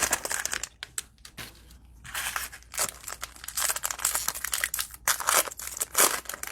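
Cellophane wrapper of a pack of trading cards crinkling and tearing as it is snipped and pulled open, in a string of irregular crackles.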